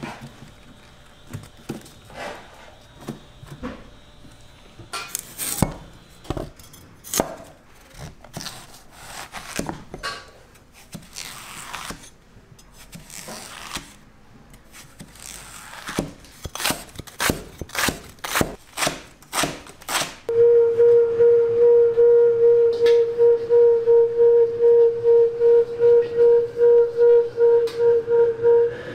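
Large kitchen knife chopping onion and zucchini on a wooden stump chopping block: irregular sharp knocks on the wood. About twenty seconds in, a loud steady tone pulsing several times a second takes over and runs to the end.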